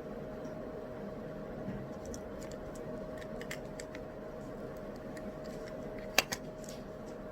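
Steady background noise with a faint hum, broken by scattered light clicks of desk work and a sharp double click about six seconds in.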